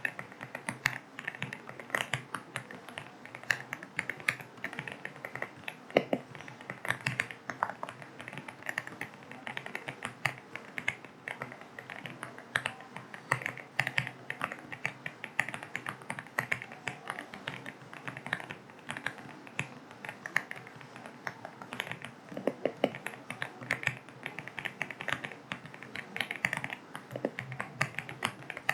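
Continuous fast, irregular typing on an AULA F75 mechanical keyboard with linear switches: a dense stream of key clicks with a few louder strokes, over a soft steady hiss of rain ambience.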